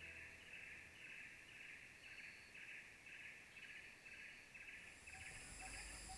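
Faint insect chirring in the forest, pulsing evenly about twice a second, with a thin high-pitched insect whine joining near the end.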